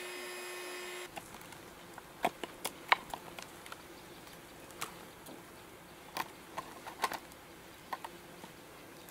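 A steady hum cuts off about a second in. Then come scattered small clicks and taps, irregular, a few a second at most, as the opened bamboo stingless-bee nest and its brood combs are handled.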